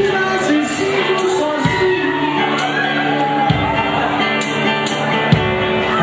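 Small live band playing a song in a relatively acoustic format: a man singing into a microphone over guitar, with drum hits about every two seconds and cymbal strikes.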